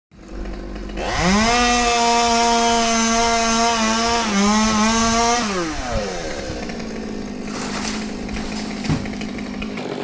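Chainsaw revved up about a second in and held at full throttle for about four seconds with a brief dip, then dropping back to idle. A single sharp knock near the end.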